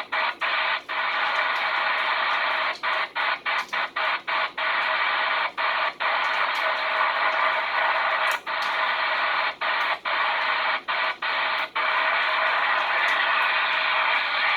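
CB radio receiver hissing with band static while listening for distant DX stations, the noise cut off above and below like speaker audio and broken by many brief dropouts. The static reflects poor DX conditions with heavy interference on the band.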